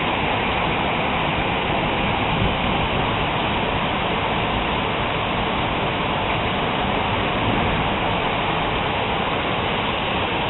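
Heavy rain mixed with hail pouring down in a thunderstorm, a dense steady hiss that does not let up.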